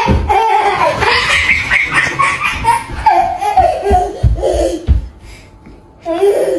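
A toddler laughing and squealing in loud bursts, with a pause of about a second near the end before one more short burst.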